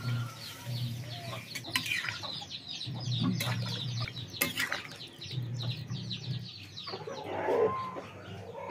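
Chickens clucking in the yard, with a louder call near the end, over steady high chirping of small birds and a couple of sharp clinks about two and four and a half seconds in.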